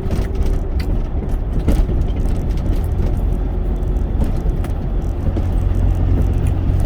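Cargo truck heard from inside its cab while driving: a steady low engine and road rumble, with a few faint clicks.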